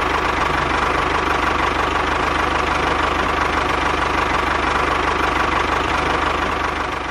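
Tractor engine running steadily at idle with a fast, even knock, fading out near the end.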